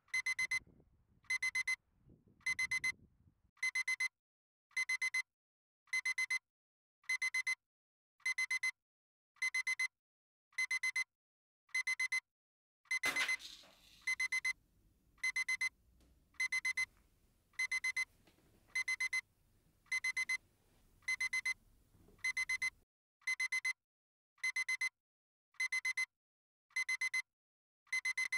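Alarm clock beeping: bursts of rapid high-pitched beeps repeating about once a second. About halfway through there is a sudden loud rush of noise, and a low background rumble follows for several seconds.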